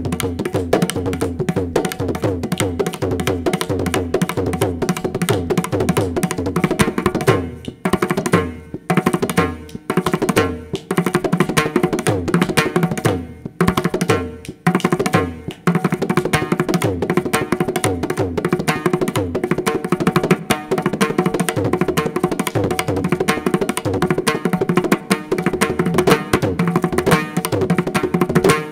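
Indian hand-drum solo: fast, dense strokes, broken by a few short pauses in the middle where single strokes ring out and die away.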